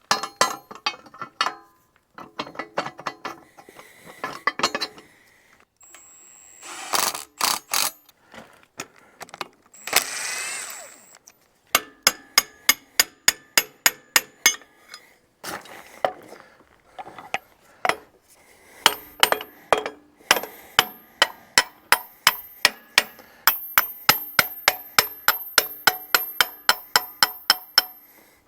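Hand tools working on the steel parts of a mini excavator's thumb mount. First come scattered metallic clanks and knocks, then from about halfway a long run of sharp, evenly spaced metallic clicks, about two to four a second.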